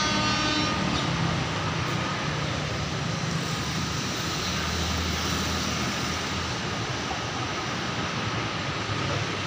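Steady low rumble and hiss of distant traffic and engines, with a brief high-pitched tone right at the start.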